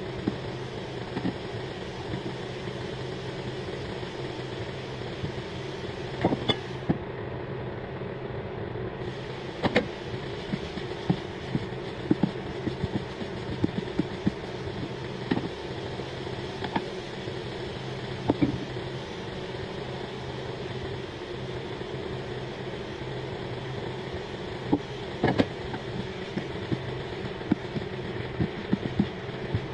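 Stir-frying shrimp and vegetables in a hot wok: a steady hum and sizzle, with the slotted spatula knocking and scraping against the pan at irregular moments.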